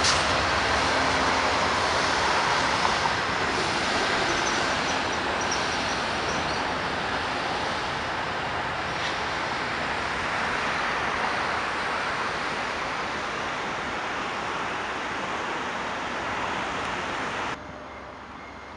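VIA Rail passenger train's cars rolling across a steel girder railway bridge: a steady rumble of wheels on rail that slowly eases off. Near the end it cuts off suddenly to a much quieter background.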